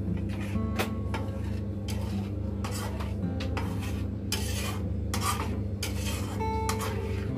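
A spatula scraping and stirring thick chili sauce in a metal wok, in irregular strokes, over steady background music.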